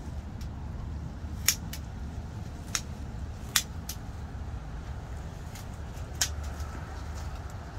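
Seven or so sharp, brief clicks at irregular intervals over a steady low rumble, the loudest about a second and a half in and again about halfway through.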